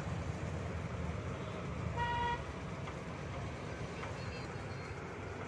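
Steady low rumble of road traffic with one short vehicle horn toot about two seconds in.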